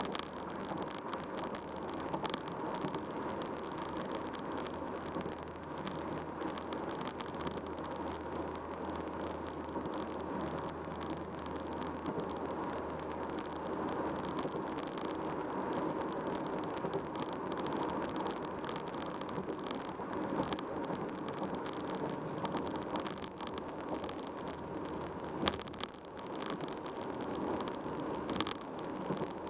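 Car driving at freeway speed: steady tyre and road noise, with two sharp ticks near the end.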